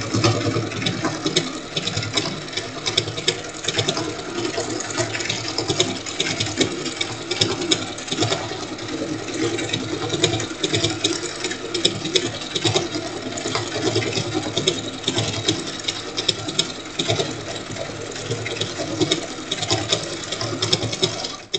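Electric sewing machine running steadily, its needle stitching a decorative stitch through quilt fabric in a fast, even run of strokes.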